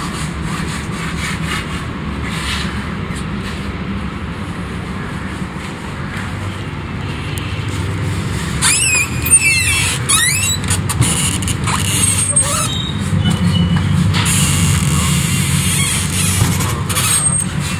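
Steady low rumble of traffic with a loud, high-pitched metallic squeal that glides up and down about nine seconds in, followed by a few shorter high squeaks.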